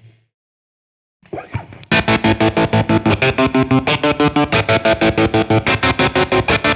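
Distorted electric guitar through a Rodenberg Killmister kill-switch pedal. A held note is cut to silence near the start. From about two seconds in, a loud riff is chopped on and off in an even stutter of about five times a second by the pedal's adjustable auto-kill mode.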